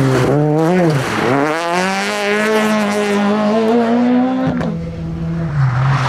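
Ford Fiesta rally car engine dipping in pitch as it comes off the throttle through a hairpin, then accelerating hard out of it, its note climbing steadily for about three seconds. A little over four seconds in, the sound changes abruptly to another rally car's engine at a lower, steadier pitch.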